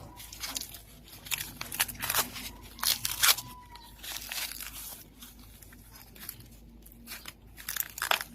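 Sweet corn husks and leaves crackling and tearing in irregular bursts, loudest about three seconds in: the sound of ears being pulled and husked at harvest.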